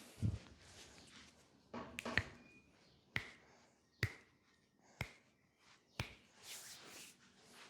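Hand tapping on the body during a massage: sharp single taps about once a second, each with a short ring.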